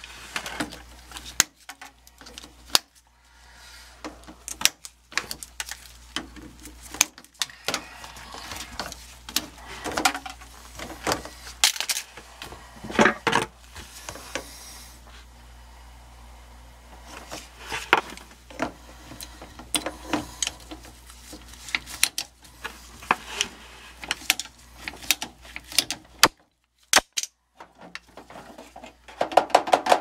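Irregular clicks, knocks and rattles of a 3/4-inch PVC condensate drain pipe being handled, bent and worked off the air handler's drain fitting, with a steady low hum underneath.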